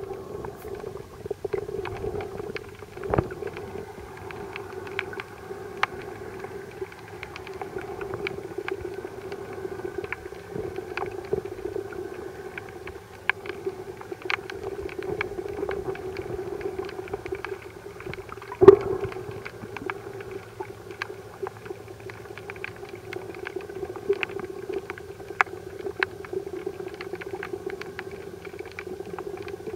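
Underwater sound picked up by a submerged camera: a steady low hum with scattered clicks and crackles throughout, and a couple of louder knocks, the loudest about two-thirds of the way through.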